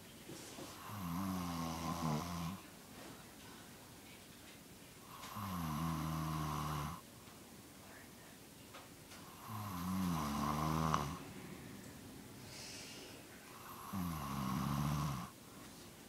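An elderly woman snoring: four long, buzzing snores, about four seconds apart, with quiet breaths between them.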